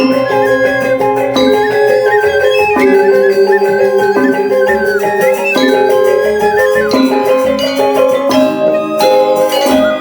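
Balinese gamelan music: bronze metallophones and gongs playing a steady ringing melody in even steps, with a higher wavering melody line above.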